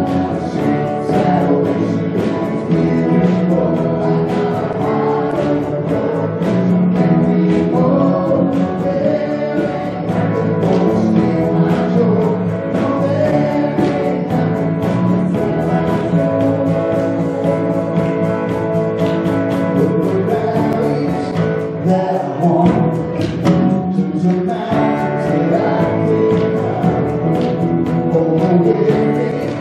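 Live worship band playing a gospel-style song: male and female voices singing over acoustic guitar, electric bass, keyboard and drums with a steady beat.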